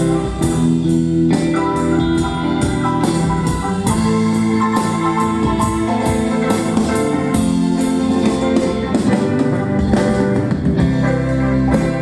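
Live rock band playing an instrumental passage with no vocals: guitar, bass, keyboards and drum kit, the drums keeping a steady beat.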